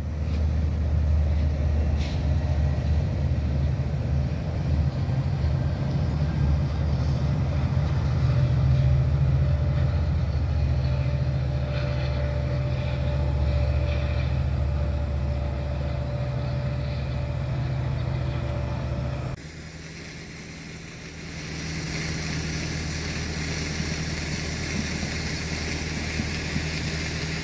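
Commuter train running steadily across a railway bridge, a loud low rumble with a steady mid-pitched tone over its second half. About nineteen seconds in the sound cuts to a quieter steady rush of floodwater.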